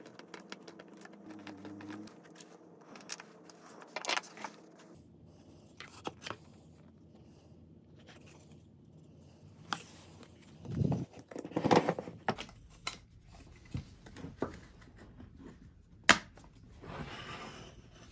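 Small hand-work sounds on a bench: a screw turned by hand into a plastic jigsaw base plate and wooden fence strip, then the plate and strip handled and fitted to the jigsaw. Scattered clicks, scrapes and plastic-on-wood knocks, with one sharp click near the end.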